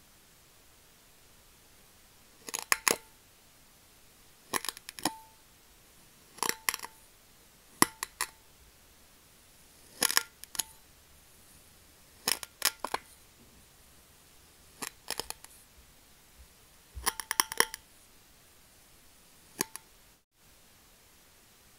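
Metal tongs pushing down through kinetic sand and clinking on a glass plate: short clusters of sharp clicks with a brief ring, about every two seconds.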